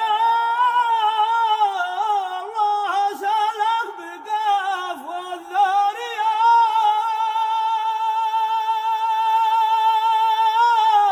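A man chanting an unaccompanied Yemeni tasbih, holding one long ornamented note on the call "yā" for over ten seconds. The pitch wavers and dips, then begins to slide down near the end.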